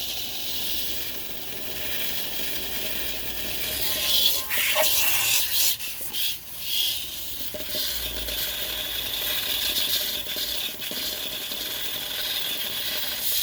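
Pressure washer jet hissing steadily against a bowl, driving it to spin so it rattles and rubs on the surface under it, with small clicks throughout and a louder stretch about four to seven seconds in.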